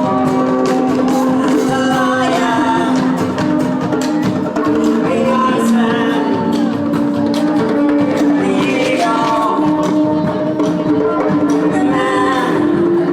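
Live worship band music: a sung melody over sustained instrumental chords, with light percussion ticking through it.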